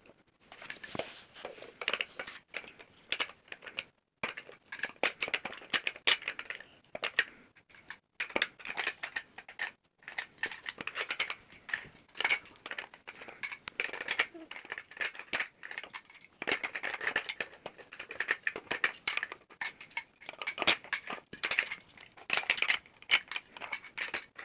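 Small plastic puzzle pieces of a Smart Games Little Red Riding Hood set being handled, rattled and clicked onto a plastic pegged board: clusters of light clicks and rustling that stop briefly every few seconds.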